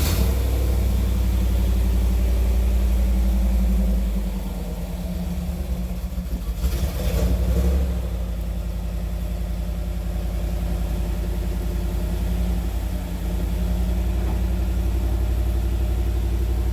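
Chevrolet LT1 350 V8 of a Z28 Camaro running just after being started, settling into idle. Its level drops about four seconds in, with a brief noisy surge around seven seconds in before it runs steadily.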